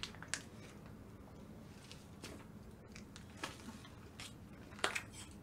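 Quiet mouth sounds of someone drinking iced sikhye: a few short, faint clicks and swallows.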